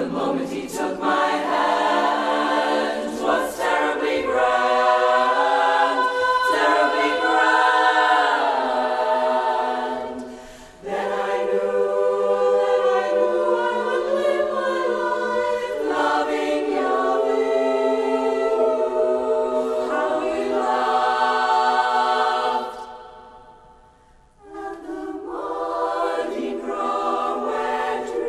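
Women's barbershop chorus singing a cappella in close harmony, with long held chords. The sound dips briefly about ten seconds in, then fades to a near-silent pause a little past the middle before the chorus comes back in.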